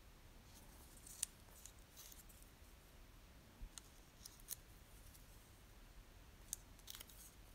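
Faint, sparse ticks and light rustles of paper being handled: a small postage stamp picked up and laid against a paper journal page, over near silence.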